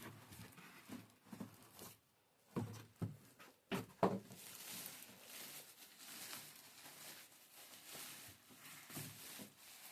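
Cardboard packaging being handled during an unboxing: a few soft knocks, then faint, steady rustling.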